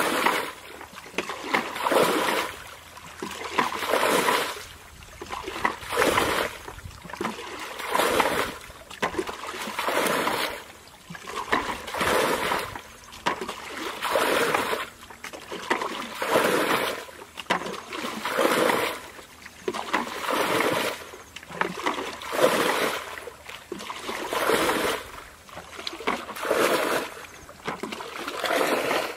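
Water being bailed by hand with a plastic basin: a scoop and a splash about every two seconds as the water is flung out of a shallow muddy pool.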